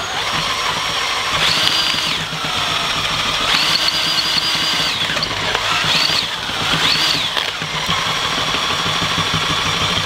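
A small motor spins a DIY ceiling-fan alternator, a neodymium-magnet conversion, at low speed, with a steady low hum. Its whine rises, holds and falls back about four times as the speed is pushed up and let off.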